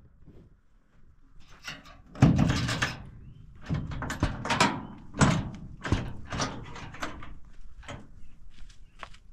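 Knocks and scrapes on the metal load bed of a pickup truck as items are set down and shifted in it. The knocks come irregularly, and the loudest one is about two seconds in.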